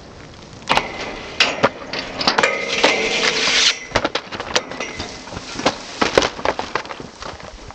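Skis knocking and scraping on a metal stair handrail: a run of sharp clacks, with a harsh grinding scrape lasting about a second and a half a little past two seconds in.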